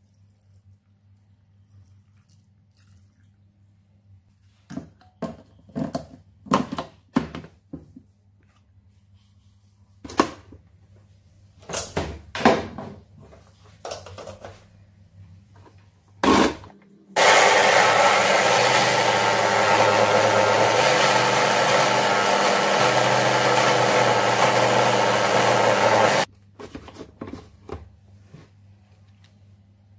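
Electric blender grinding sweet corn kernels with water into a purée, running steadily for about nine seconds and then cutting off sharply. Before it starts there is a series of knocks and clicks.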